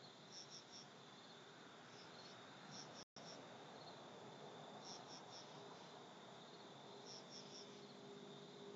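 Faint night insects chirping: short groups of two to four high chirps every second or two over a steady high trill. The audio drops out for an instant about three seconds in.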